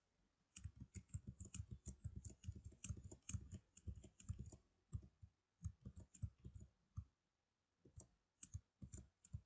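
Faint computer keyboard keystrokes typed in quick runs as code is deleted and retyped. They thin out after about five seconds, with a brief pause near the end.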